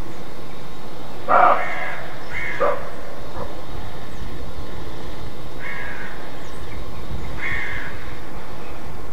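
Roe deer barking, the alarm call hunters call "Schrecken": a loud hoarse bark about a second and a half in and a shorter one just after, then two fainter barks later on.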